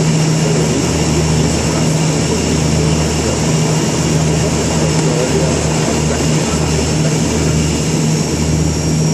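Inside a de Havilland Canada Dash 8-200 on final approach: the steady drone of its two Pratt & Whitney PW123 turboprops and propellers, a strong low hum with a deeper throb that pulses unevenly, over rushing air noise and a faint high whine.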